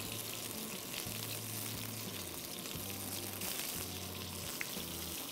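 Small whole slit brinjals sizzling steadily in hot oil in a kadai, turned now and then with a wooden spatula: they are being sautéed on a medium flame until about half cooked.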